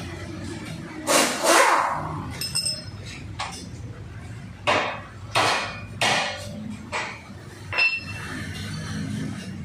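Metal hand tools knocking and clinking against the stabilizer-bar bracket and steel subframe of a car's front suspension. A loud pair of knocks comes about a second in, then single knocks roughly once a second, some ringing briefly.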